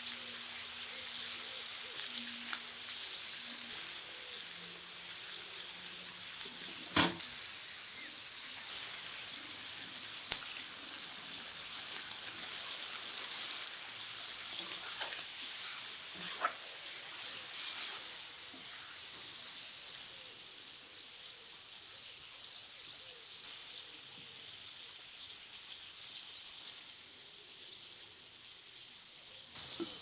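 Beef and sliced peppers sizzling as they fry in a wide wok-style pan, a steady hiss, with a spatula stirring. A few sharp knocks stand out, the loudest about seven seconds in.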